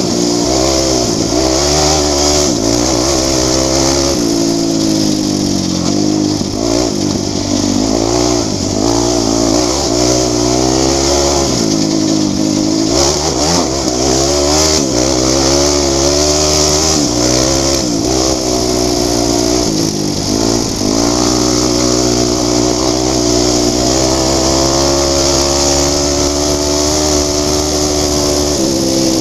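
Sport ATV engine at high revs, its pitch climbing and dropping again and again as the rider works the throttle and shifts on a fast dirt track, over a steady high hiss.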